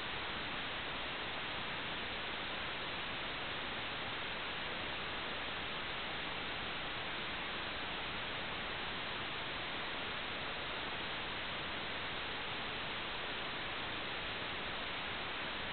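Steady static hiss, even and unchanging throughout, with no motor tone, voices or other events in it.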